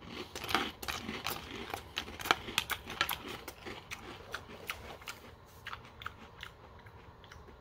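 A person chewing a mouthful of crunchy cereal with milk and marshmallows: irregular close crunches, busiest over the first three seconds and thinning out toward the end.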